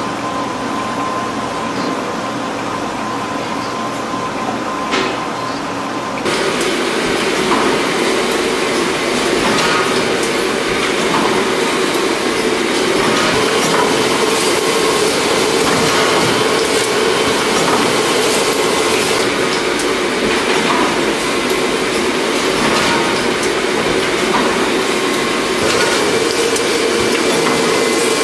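Fidia automatic brochure folding and gluing machine running, a steady mechanical clatter with a constant hum and many small clicks. It gets louder about six seconds in.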